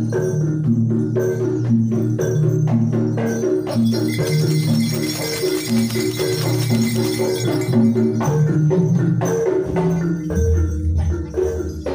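Jaranan gamelan music: a repeating, interlocking pattern of struck pitched metal notes with drum and jingling percussion, a brighter shimmer in the middle and a deep low note about ten seconds in.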